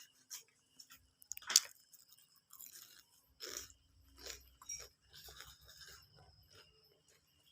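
Crinkling and tearing packaging being handled, with irregular clicks and short crunchy bursts. The sharpest and loudest comes about one and a half seconds in.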